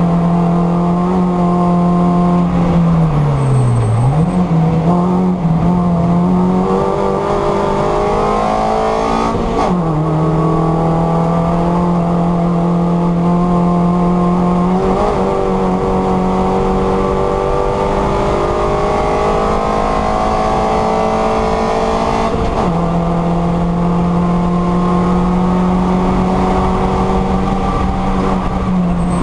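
Mini Cooper race car's four-cylinder engine heard from inside the cabin, running hard at high revs. The note holds steady for long stretches and dips or breaks briefly about four, ten, fifteen and twenty-three seconds in, where the driver lifts off or changes gear.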